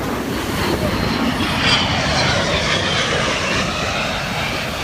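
Airplane engine noise as an aircraft flies past: a broad rush that swells over the first two seconds, carries a faint sliding whine near its peak, and then eases off.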